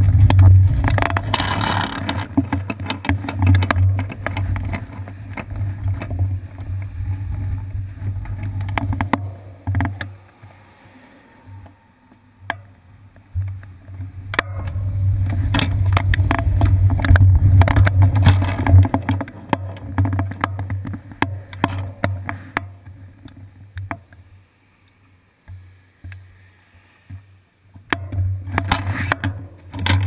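Wind and road rumble on a bicycle's seat-post-mounted GoPro Hero 2 while riding, with scattered clicks and rattles. The noise fades twice to quieter stretches as the bike slows.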